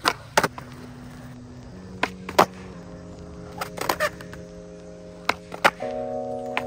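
Skateboard clacking on concrete: sharp pops and landings, mostly in quick pairs, four times. Background music of held chords plays underneath.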